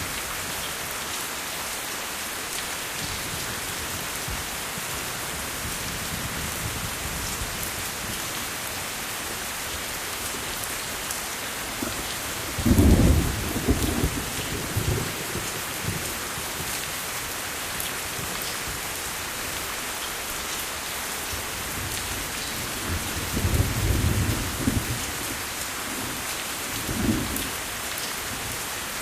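Steady heavy rain falling, with low rumbles of thunder rolling in about 13 seconds in, again around 24 seconds, and a short one near 27 seconds.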